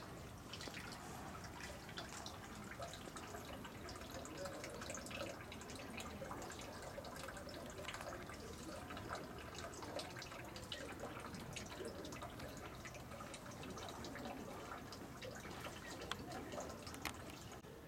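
Water trickling from a dragon-shaped spout into a shrine's stone purification basin, a steady running splash with many small irregular drips.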